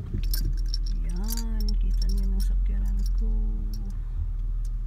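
A person humming or singing a few held notes without words, over a steady low rumble, with light jingling clicks.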